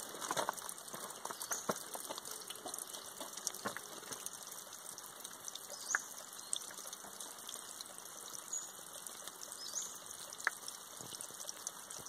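Thin seasonal waterfall running as a trickle down a mossy rock face: a steady hiss of falling water with many single drops splashing close by, the flow low rather than raging.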